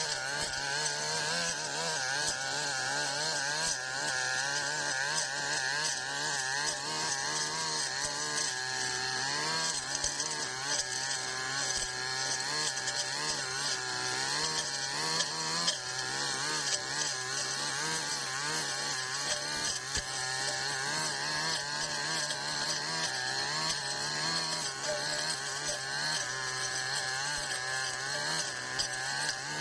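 Brush cutter engine running hard and steady, its pitch wavering up and down as it cuts through tall grass.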